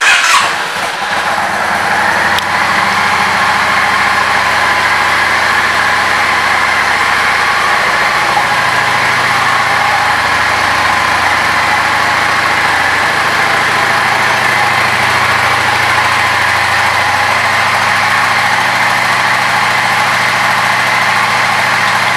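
2004 Yamaha V Star 650 Classic's air-cooled V-twin starting with a loud burst, then settling within about two seconds into a steady idle.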